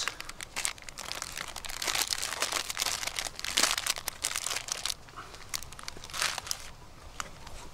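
Plastic snack-bar wrappers crinkling as the packets are handled and pulled out of a canvas bag. The crinkling is dense for about the first five seconds, then thins to a few scattered rustles.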